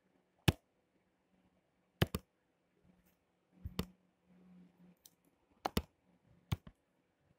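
Computer mouse clicking: about eight sharp clicks, some single and some in quick pairs, spaced unevenly.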